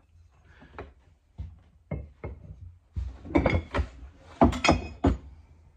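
Axes being handled in a crate, their steel heads and wooden handles knocking and clunking against each other and the crate. Scattered light knocks at first, then a run of louder clunks about three to five seconds in.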